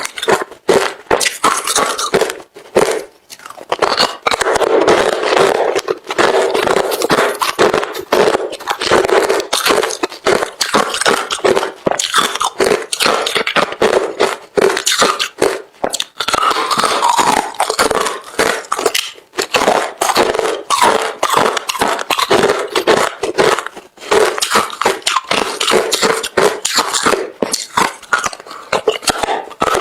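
A person chewing hard refrozen crushed ice: dense, rapid crunching and crackling, broken by a few short pauses.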